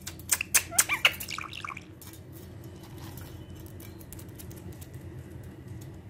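Green ringneck parakeet giving a few short chirping calls, mixed with sharp clicks, in the first two seconds. After that only a faint steady hum remains.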